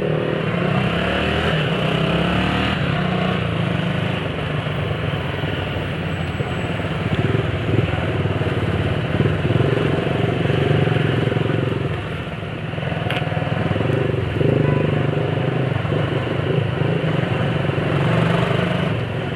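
Honda CG 125 Fan motorcycle's small single-cylinder engine running steadily while riding in traffic, its pitch and loudness swelling a little now and then, heard with road and wind noise.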